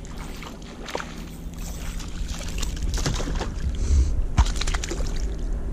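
Sounds aboard a fishing kayak on the water: a steady low rumble with scattered sharp clicks and knocks as the angler handles his tackle and a fish he has just hooked.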